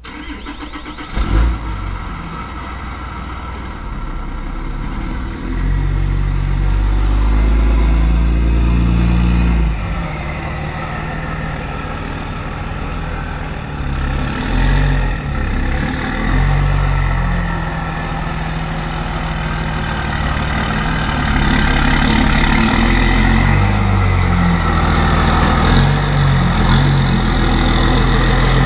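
Dodge pickup truck's engine running as the truck drives around and pulls up close, revving and easing off in steps and getting louder near the end. A brief sharp thump about a second in.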